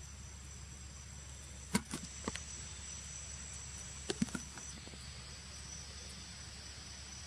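Steady high-pitched insect drone, like cicadas or crickets, over a low steady hum. A few sharp clicks come in two small clusters, about two seconds in and again about four seconds in.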